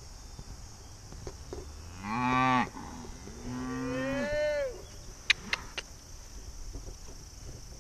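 Cattle mooing twice: a short, loud moo about two seconds in, then a longer moo that rises and falls in pitch. Three short, sharp clicks follow soon after.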